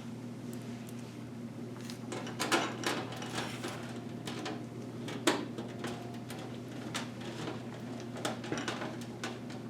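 Scattered clicks and knocks of hands working on a metal PC case and its parts, the sharpest about two and a half and five seconds in, over a steady low hum.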